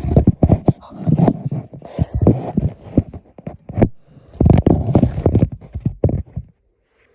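Loud, irregular knocks and thumps very close to the microphone for about six and a half seconds, then they stop abruptly.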